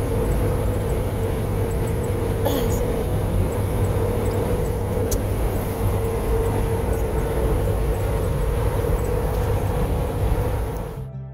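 Road noise inside a car's cabin at highway speed: a steady low rumble with a steady hum, and two light clicks. The noise drops away near the end.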